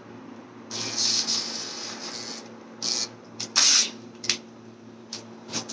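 Hand drill cutting into the aluminium engine block, drilling out a stripped bolt hole for a HeliCoil: one run of about two seconds, then several short bursts on and off the trigger. A low steady hum runs underneath.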